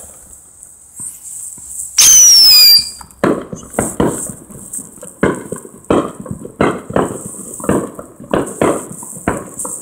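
"Hen Laying Eggs" novelty firework going off: a loud shrill whistle falling in pitch about two seconds in, then a steady run of sharp pops, two or three a second, as it kicks out its pieces.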